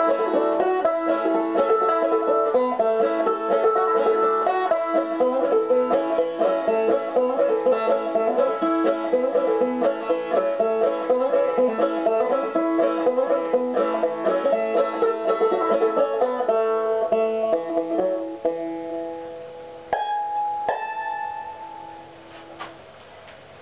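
Solo banjo picking a fast tune with quick, rolling notes, thinning out near the end and closing with two final struck notes about 20 seconds in that ring and die away.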